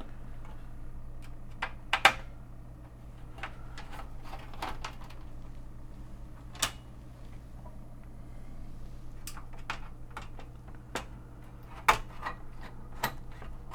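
Scattered light clicks and taps of a screwdriver working a screw out of the Commodore 128's metal RF shield, a dozen or so irregular strokes, over a steady low hum.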